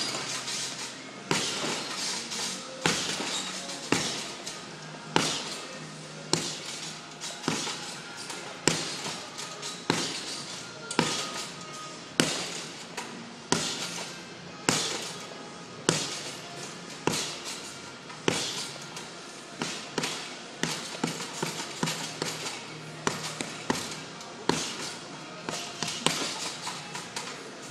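Fists in hand wraps punching a hanging heavy bag: sharp smacks in an uneven run of combinations, roughly one heavy hit a second with lighter ones in between. Background music plays underneath.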